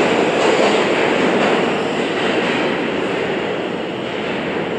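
New York City subway E train pulling in alongside the platform. Its cars roll past with a loud, steady noise of wheels on rail that gradually eases off.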